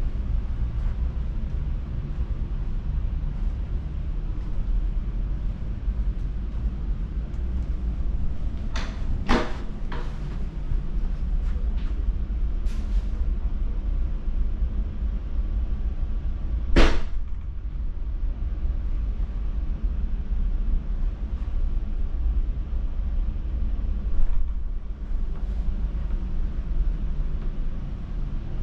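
Steady low hum inside a stationary electric train carriage, broken by a few scattered sharp clicks and knocks, the loudest a little past halfway.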